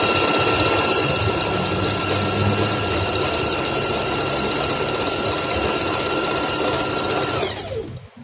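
Singer 4432 Heavy Duty sewing machine running continuously during free-motion zigzag stitching with a darning foot, its motor giving a steady whine. Near the end it winds down, falling in pitch, and stops.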